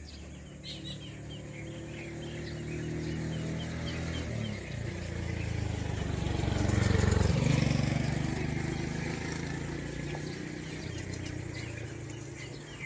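Motor vehicle engine running steadily, then a vehicle going past, growing louder to a peak a little past halfway and fading again. Small bird chirps repeat in the first half.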